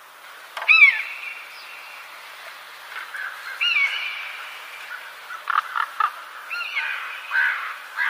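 Animal calls: three loud cries about three seconds apart, each falling in pitch and trailing into a harsher held note, the first the loudest.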